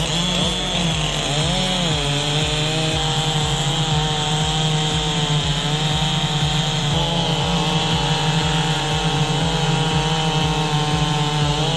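Chainsaw running at full revs and cutting through wood with a steady high scream. Its pitch dips and recovers twice in the first couple of seconds, then holds.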